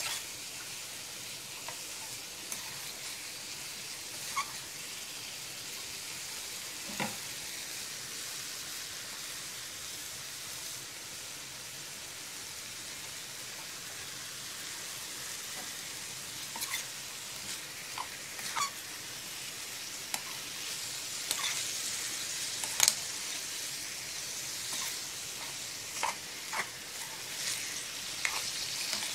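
Liver pieces with chopped peppers, garlic, spices and vinegar sizzling in a hot frying pan: a steady hiss with scattered sharp clicks, more frequent in the second half.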